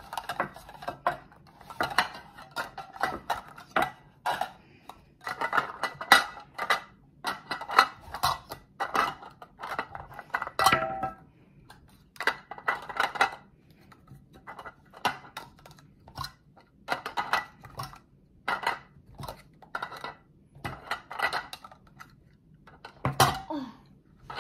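Hard translucent plastic stacking cups clacking against one another and the table as they are quickly picked up and set onto a growing pyramid: a fast, irregular run of light clicks and knocks with short pauses.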